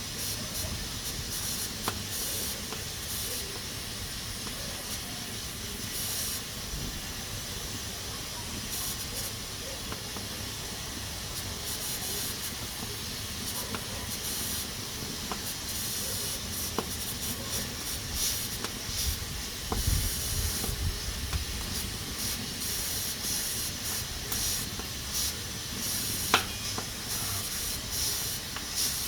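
Pressure cooker hissing as steam escapes through its valve, a steady high hiss that swells and eases irregularly. A few sharp clicks stand out, the loudest near the end.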